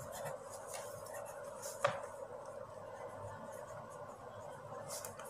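Faint scratching of a pen writing on notebook paper, over a steady background hum, with one short click about two seconds in.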